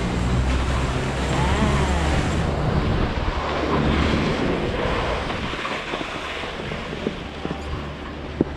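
Wind buffeting the microphone and the hiss of snowscoot boards sliding over packed snow on a downhill run. The low rumble is heavy for the first few seconds, then eases, and a single sharp knock comes near the end.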